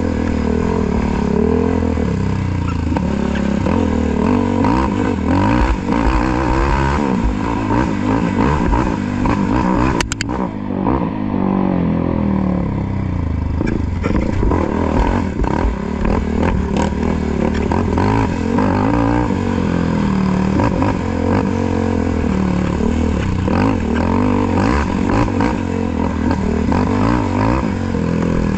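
Off-road quad (ATV) engine revving up and down as it is raced along a rough dirt trail, with a sharp knock about ten seconds in.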